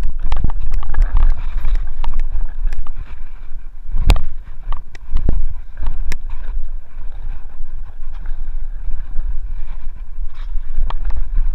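Mountain bike riding fast down a rough dirt trail: wind buffeting the camera microphone with a steady rumble, over repeated clatters and knocks from the bike rattling across bumps and rocks, the sharpest about four seconds in.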